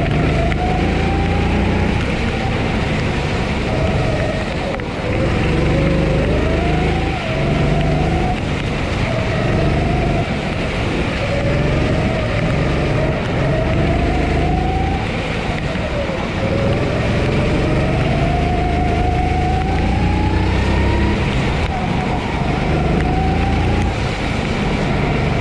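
Honda GX270 single-cylinder four-stroke engine of a Sodi SR4 kart heard from the driver's seat, revving up out of each corner and dropping back when the driver lifts, over and over through the lap.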